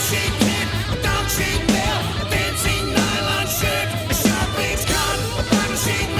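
Hard rock music: a rock band recording with sustained, wavering guitar or vocal notes over a steady drum beat.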